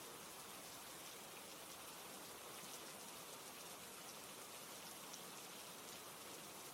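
Steady rain falling: a faint, even hiss with scattered small drop ticks.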